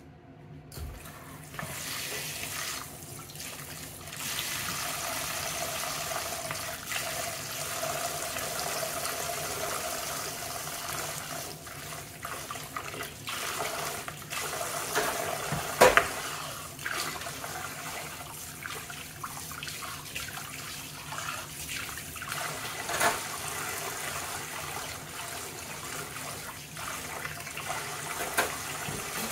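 Kitchen faucet running into a sudsy plastic bowl in a stainless steel sink during dishwashing, starting about a second in. A few sharp knocks of dishware cut through it, the loudest about halfway.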